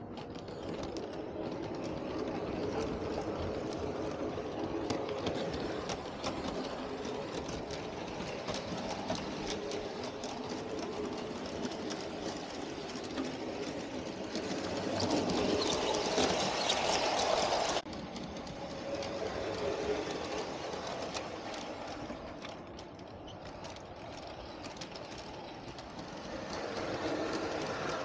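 Bachmann G-scale model trains running on a garden railway: a steady rumble of metal wheels on the track with the hum of the locomotive motors. It grows louder for a few seconds a little past the middle, then drops off abruptly.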